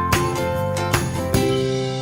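Intro music with bright bell-like notes over a steady beat, settling onto one held chord about two-thirds of the way through.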